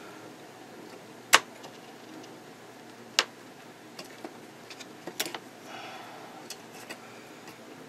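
Small metal hand tools being handled: three sharp clicks a couple of seconds apart, the first the loudest, with a few lighter ticks, as a clamp and pliers are fitted to and handled on the work.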